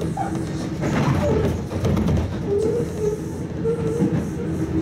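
Sotetsu new 7000 series electric train heard from inside a motor car while running: a steady rumble of wheels on rails, with a wavering whine from its Hitachi GTO-VVVF traction inverter and motors coming in as short tones from about halfway in.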